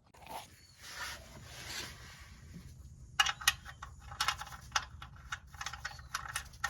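Faint rubbing, then a run of irregular light metallic clicks and clinks from about three seconds in, as hand tools are handled during the oil change.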